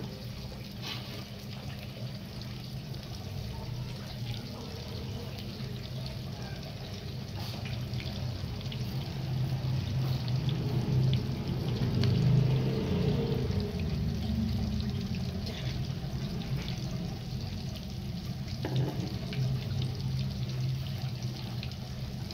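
Egg-coated potato sandwich triangles shallow-frying in very hot ghee: a steady sizzle with scattered small crackles over a low steady hum, growing a little louder around the middle.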